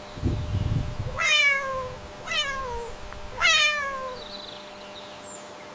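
Domestic cat meowing three times, about a second apart, each meow falling in pitch. A brief low rumble comes just before the first meow.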